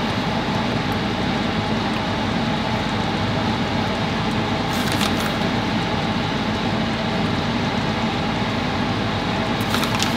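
Steady whirring rush of a kitchen fan, with brief plastic-bag crinkles from a bag of shredded cheese being shaken, about five seconds in and again near the end.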